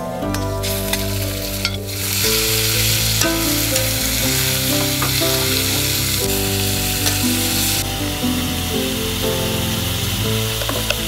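Garlic and sliced beef sizzling in a hot metal wok, with a metal ladle stirring and scraping the pan and clicking against it now and then. The sizzle gets louder about two seconds in.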